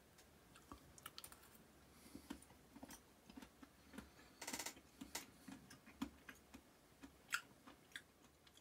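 Faint, scattered light clicks and taps, with a short burst of rapid ticking about halfway through and one sharper click near the end.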